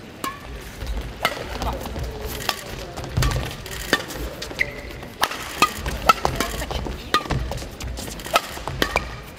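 Badminton doubles rally: sharp cracks of rackets striking the shuttlecock about once a second, with short squeaks of court shoes on the hall floor and low thuds of footsteps.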